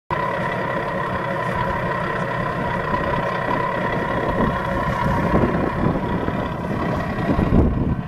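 Remote-control model tractor's motor running steadily, a constant high whine over a low rumble; the whine fades near the end.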